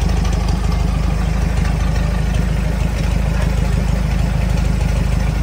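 Fire truck's engine idling steadily, a low, even rumble.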